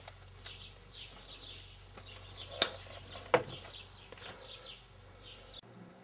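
Plastic safety clip of a fuel-line quick-disconnect fitting snapped over the tube: two sharp clicks about three-quarters of a second apart.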